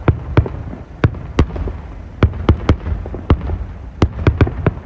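Aerial firework shells bursting: an irregular run of about a dozen sharp bangs and pops over a steady low rumble.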